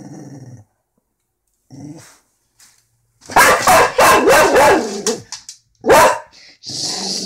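A dog growling low, falling quiet, then letting off a quick string of loud barks about three seconds in and one more sharp bark near six seconds, before growling again. It is growling and barking at a toy rocking horse that it doesn't like.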